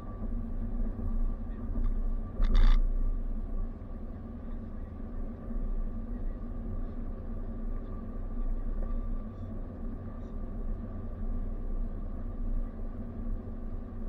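Car driving at road speed, heard from inside the cab: a steady low rumble of tyres and engine with a faint steady whine. About two and a half seconds in, a short sharp knock stands out.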